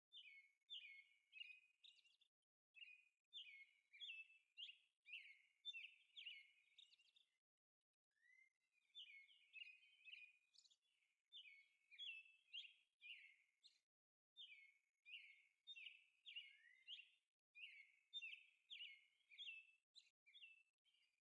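Faint birdsong: quick runs of short, high chirps repeated over and over, with a few brief breaks.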